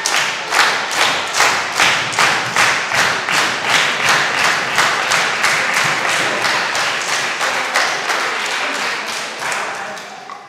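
Wrestling crowd clapping together in a steady rhythm, about two and a half claps a second, loosening and dying away near the end.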